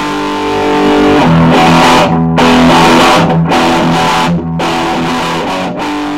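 Guitar-led intro theme music: held chords with brief stops between them.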